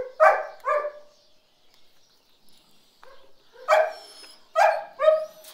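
Dogs barking: two barks at the start, a pause of a couple of seconds, then four more barks in quick succession near the end.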